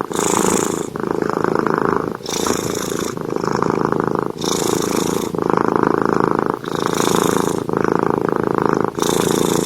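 Domestic cat purring loudly, close up, the purr changing with each breath in and out about every two seconds.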